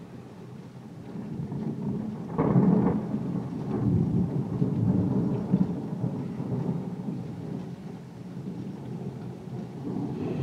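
Thunder rolling over steady rain: the rumble builds from about a second in, breaks loudest about two and a half seconds in, rolls on for a few seconds and fades, then swells again near the end.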